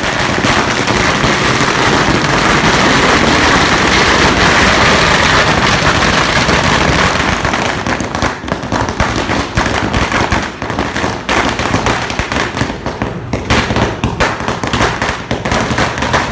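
Crackling firecracker going off: a dense continuous hissing crackle for the first half, breaking up after about eight seconds into rapid separate crackles and pops that thin out toward the end.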